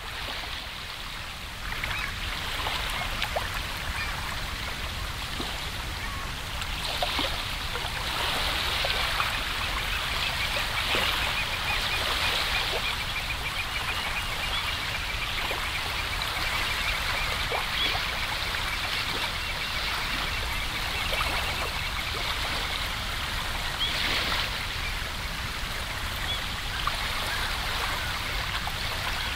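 Water trickling and babbling steadily, with many small droplet-like ticks.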